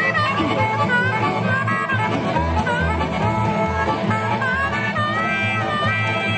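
Live band music playing loudly and continuously: a melody line over a steady, pulsing bass.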